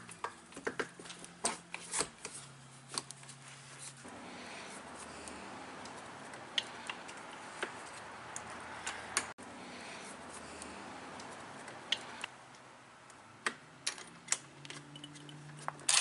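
Scattered light clicks and taps of plastic and metal door-lock parts being handled and fitted into an RV entry door, with a faint steady hiss behind them.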